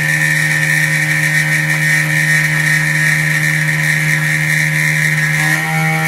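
CNC mill spindle running with an end mill cutting through a block of stock: a steady high whine over a constant low hum, its pitch shifting slightly near the end.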